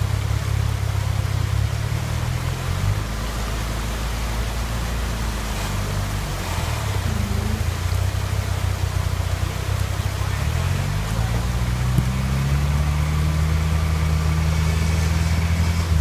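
Toyota rock buggy's engine working under load as it crawls up a rock ledge, the revs dipping twice and then climbing a little past halfway and holding higher, over the rush of creek water.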